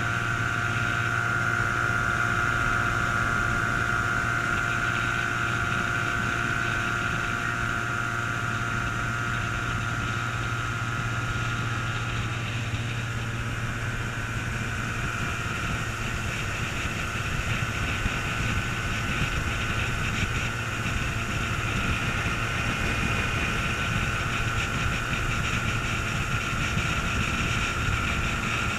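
Antique outboard motor running steadily, heard from aboard the small aluminum boat it is pushing along.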